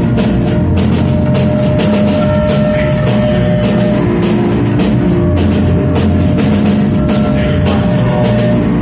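A post-punk rock band playing live and loud: electric guitar over a steady drum-kit beat, with no singing in this stretch.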